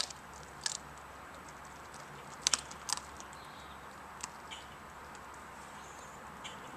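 Greyhound chewing raw chicken: irregular sharp crunches and cracks, the loudest a quick pair about two and a half seconds in, over a steady low hiss.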